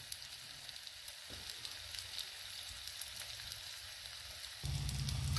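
Egg frying in a coconut shell over a gas flame: a steady sizzle with faint crackles. A low steady hum joins near the end.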